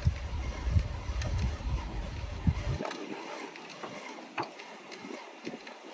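A low rumble on the microphone that cuts off suddenly about three seconds in. After it comes faint hiss with a few soft clicks.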